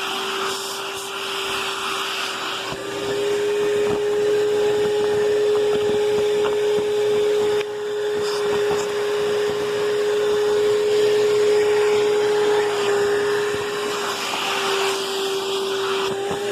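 Vacuum cleaner running with an air-driven turbo brush being worked over a bed sheet. It makes a steady, high motor whine at one pitch under a rushing hiss that swells and eases as the brush moves.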